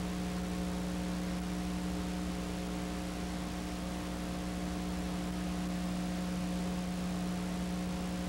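Steady electrical hum with a constant hiss behind it, unchanging throughout; no other sound.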